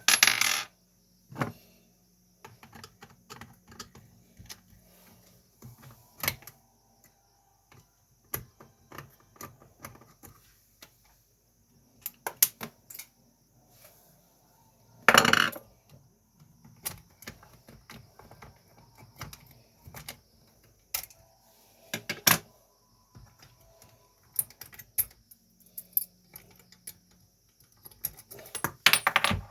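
Metal clicks, clinks and scrapes from an ERA five-lever British Standard deadlock being opened up and its levers handled, with a few louder clacks among the small ones.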